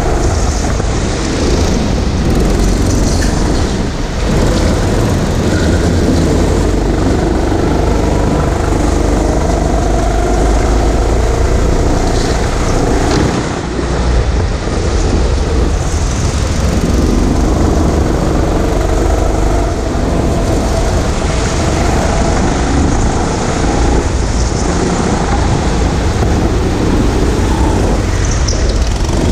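Go-kart running at speed around a track, heard from the driver's seat: a loud, steady kart running noise with a deep rumble underneath, dipping briefly twice.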